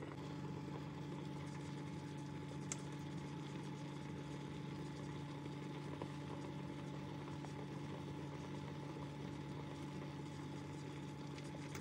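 Facial steamer running: a steady low hum with an even hiss of steam blowing out.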